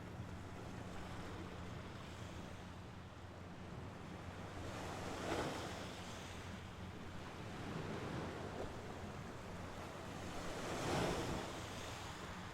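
Mediterranean Sea waves washing onto the shore. Two waves surge and break, about six seconds apart, over a steady low rumble of surf.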